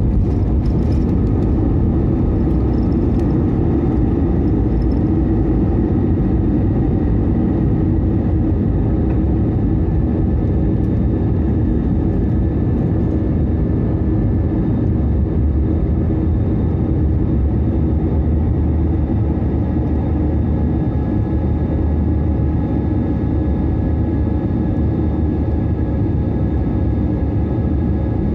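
Airbus A320 airliner at takeoff thrust, heard from inside the cabin: loud, steady engine noise with a deep low end and a few faint steady tones running through it. It covers the end of the takeoff roll and the climb-out.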